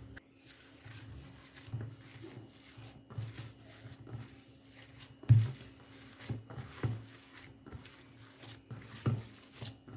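Hands mixing and kneading a seasoned ground beef mixture in a bowl: irregular soft squishing and dull thumps, the loudest about five seconds in and again near the end.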